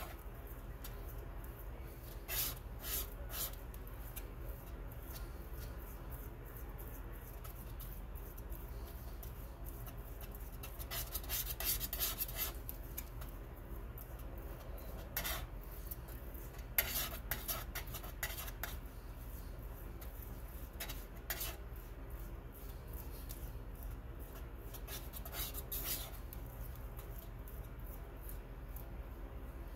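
A palette knife scraping and rubbing across a paint-grinding plate as it mixes a stiff paste of Prussian Blue pigment and linseed oil. The scrapes come irregularly, in short runs every few seconds, with a longer run about a third of the way in.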